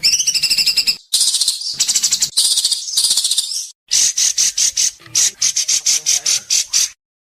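White-rumped shama (murai batu) singing in fast, harsh rasping trills (the 'besetan' of its mimicked song), breaking about halfway into a run of sharp repeated notes, about six a second.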